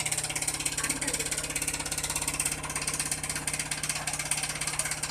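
LG front-load washing machine running, a steady hum with a fast, even throb from the turning drum.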